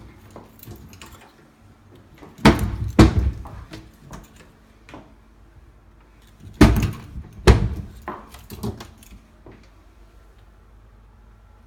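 Kitchen cabinet doors opened and banged shut: four sharp knocks in two pairs, a few seconds apart.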